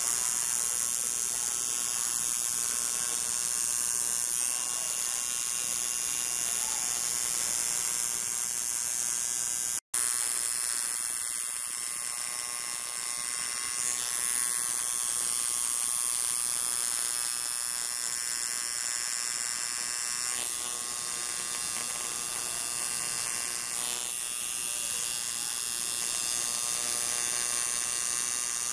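Pen-style electric tattoo machine buzzing steadily as its needle lines skin. The buzz breaks off for an instant about ten seconds in, then goes on.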